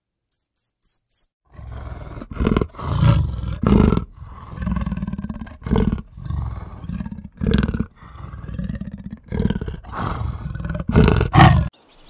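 A few quick, high chirps from a squirrel monkey, then a big cat giving a long series of deep, loud roaring grunts one after another, about one every half second to second, strongest near the end.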